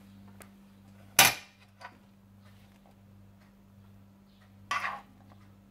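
A kitchen utensil knocks sharply against a dish about a second in, with a lighter tap just after and a short scrape near the end, as potato filling is spooned into samosa pastry; a faint steady hum runs underneath.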